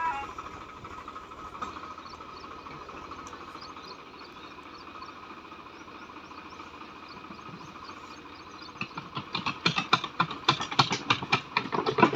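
Swaraj 855 tractor's diesel engine running steadily under a loader, then from about nine seconds a rapid, irregular clatter of loud knocks as the front-loader bucket tips and dumps its load of manure into a steel trolley.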